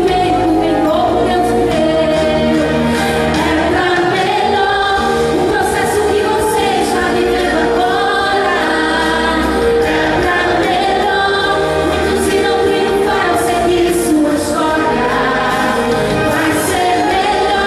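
A woman singing a gospel praise song into a microphone over backing music, with a steady low bass line under her voice.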